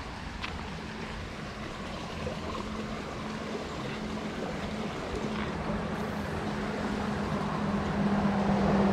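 A steady engine hum that grows louder as it goes on, over the wash of flowing creek water.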